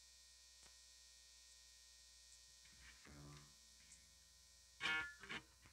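Steady electrical hum from an amplified electric guitar rig. About three seconds in come a few faint string notes, and near the end a short, louder burst of string noise as the strings are handled.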